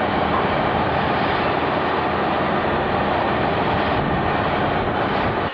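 Cement mixer truck's engine running steadily and loudly while it pours concrete; the noise cuts off suddenly near the end.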